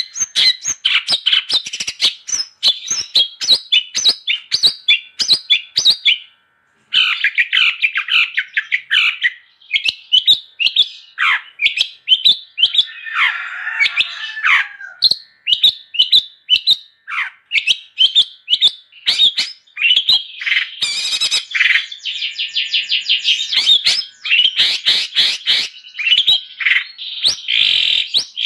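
Long-tailed shrike (cendet) singing a fast, unbroken song of sharp chirps and trills, with a few harsher rasping notes midway. The song breaks off completely for about half a second roughly six seconds in.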